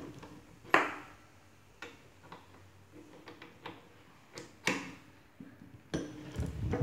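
Sharp metallic clicks and knocks from a ratchet wrench and a coil spring compressor being handled on a front strut. The sharpest click comes about a second in. A denser run of clicking and rattling starts near the end as the ratchet starts turning a forcing screw.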